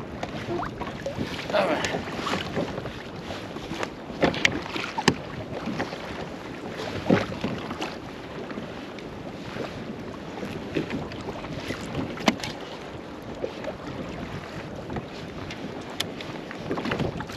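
Water lapping against a small fishing boat's hull, with wind on the microphone and scattered knocks and clicks throughout.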